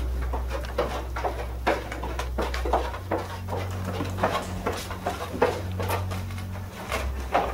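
Hurried footsteps knocking and creaking on wooden attic stairs, about two to three steps a second, over a steady low hum that shifts in pitch twice.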